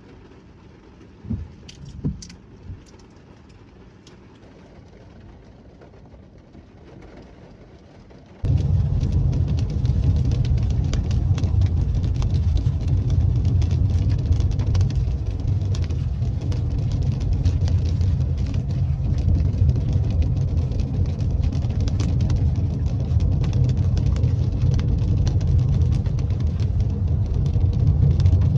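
A few light clicks in a quiet room, then, about eight seconds in, the steady low rumble of a car driving starts abruptly and holds.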